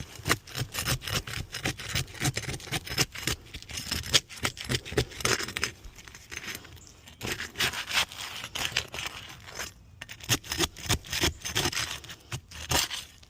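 Scraping and prying at brittle asphalt roof shingles in an attempt to work them loose, as a rapid, irregular run of scrapes and clicks with a short pause partway through. The shingles are torn and have lost their granules, so they tear rather than come out.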